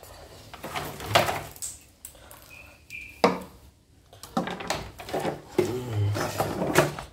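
Knocking and rattling of hard plastic and metal parts as a portable embroidery machine is handled and its mechanism checked, in two bouts with a single sharp knock between them. A brief high tone sounds just before the knock.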